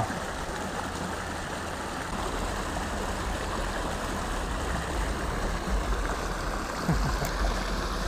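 Creek water spilling over a low concrete ledge in a steady rushing, with a low rumble underneath from about two seconds in.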